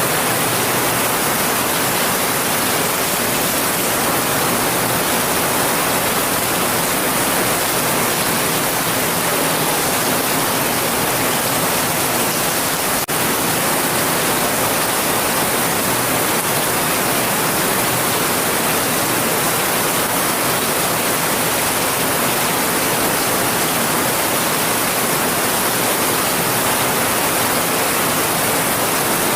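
Steady, even hiss of heavy rain, with no separate drops or thunder standing out. A faint click and brief dip in level come about thirteen seconds in.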